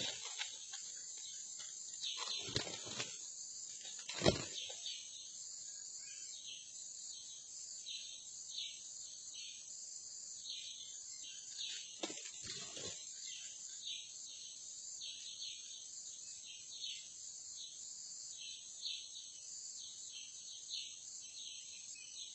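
Forest insects: a steady high buzz with short chirps repeating about once or twice a second. A few short thumps and rustles stand out, the loudest about four seconds in and another pair about twelve seconds in.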